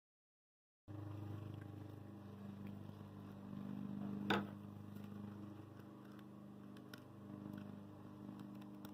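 A faint steady low hum begins about a second in, with soft scattered handling sounds of burlap ribbon being folded and pressed by hand. A single sharp click comes about four seconds in.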